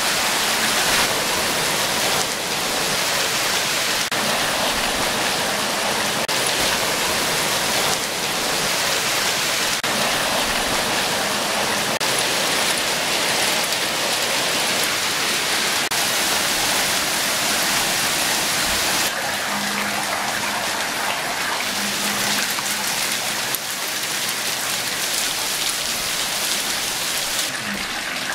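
Graupel (soft hail) pelting down in a dense, steady hiss and patter, a little quieter about two-thirds of the way through.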